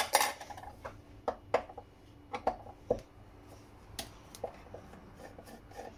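Scattered light clicks and knocks of a screwdriver and loose metal parts being handled on a radar scanner's metal gearbox casting, about eight in all.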